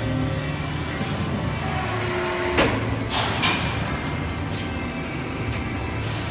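Steady low machine hum, with a sharp knock about two and a half seconds in and a short hissing burst just after.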